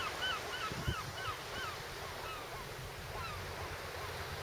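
Gulls calling in a rapid series of short, high, arched notes, several a second, thinning out after about two seconds, over a steady low rumble of wind and surf. A single thump comes just under a second in.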